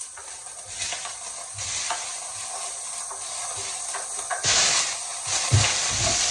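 Chopped green beans sizzling as they fry in a pan and are stirred with a spatula. The sizzle grows louder about four and a half seconds in, with a few knocks of the spatula against the pan near the end.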